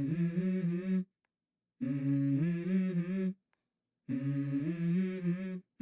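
Background music: a hummed vocal intro, three short phrases of held, stepping notes broken by moments of dead silence.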